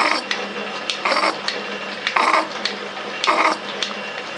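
Metal shaper cutting gear teeth in a lathe bull gear: a short cutting noise with each stroke of the ram, about once a second, over the steady hum of the machine's motor.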